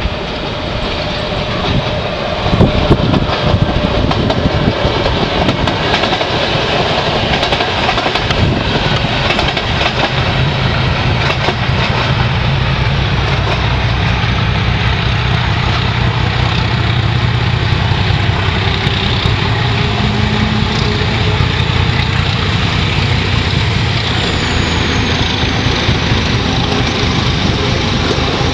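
Czech class 749 diesel locomotive 749.107 with its passenger train: for the first several seconds, wheels clattering and rumbling over the rails as it passes. After that the locomotive's diesel engine runs with a steady low hum as it draws in along the platform.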